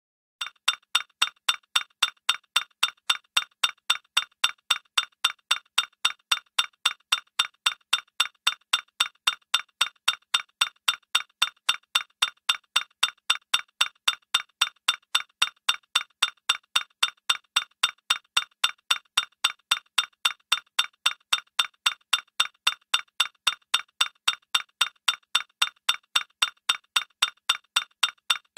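An evenly repeated bright, glassy tick, about three a second, each click carrying a short ringing pitch.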